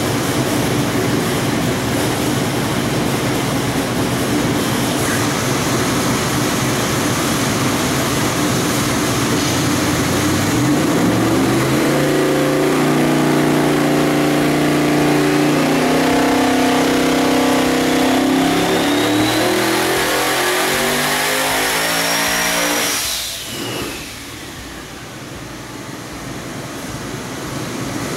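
Twin-turbo LS V8 making a full-throttle dyno pull. It runs loud and steady at first, then from about ten seconds in it climbs in revs with a high turbo whine rising along with it. Near 23 seconds it cuts back abruptly to a much quieter rumble. On this pull the engine makes about 2,500 horsepower.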